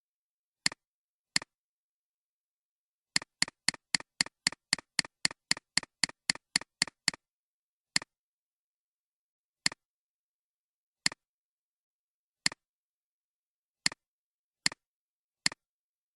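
Sharp single clicks with dead silence between them: a couple of clicks, then from about three seconds in a fast run of about sixteen clicks, about four a second, then single clicks one to two seconds apart.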